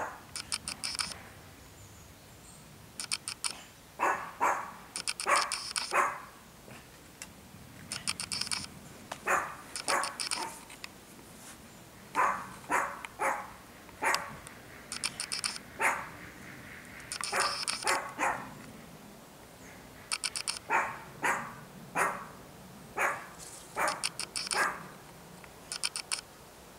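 A dog barking repeatedly, in short runs of sharp barks a second or two apart.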